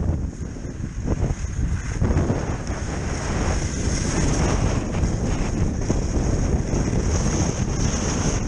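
Wind buffeting the microphone during a kiteski run, a dense fluctuating low rumble, with a steady high hiss of skis sliding over snow that grows louder from about halfway.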